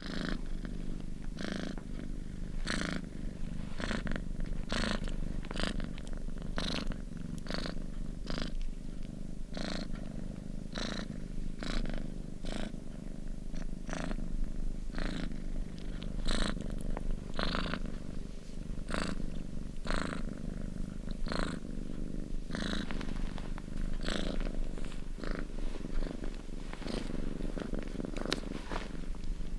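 Domestic cat purring steadily, with short crackly sounds about once a second.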